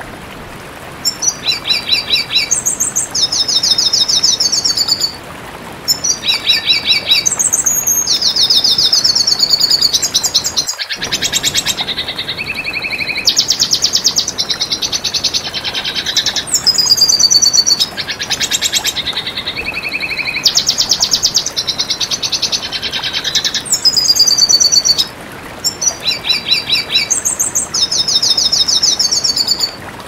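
Red siskin singing: a long, high-pitched twittering song of rapid repeated notes and trills, in phrases broken by short pauses about five seconds and twenty-five seconds in. A faint steady hiss lies underneath.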